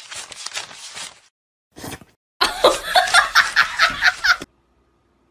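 A person laughing hard: a quick run of short laughs lasting about two seconds, then cutting off abruptly.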